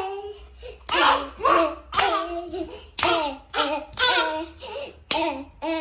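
Children clapping their hands about once a second while singing a short rhythmic chant.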